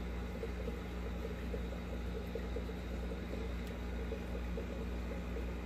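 Steady low mechanical hum of aquarium equipment, with a faint fluttering buzz over it.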